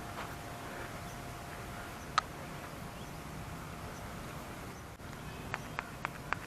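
Quiet outdoor background hum, broken by one sharp click about two seconds in and a few quick clicks near the end.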